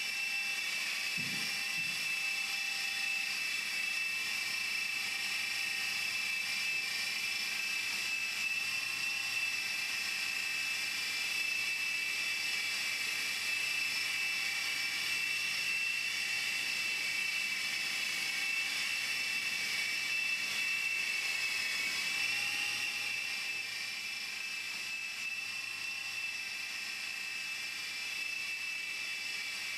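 Art-Tech RedWolf radio-controlled model helicopter in flight, its electric motor and rotor giving a steady high whine that wavers slightly in pitch. It grows a little quieter near the end.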